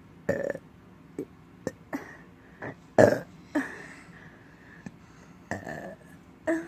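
Someone burping several times: a short burp about a third of a second in, the loudest one about three seconds in, and another near the end, with small clicks between.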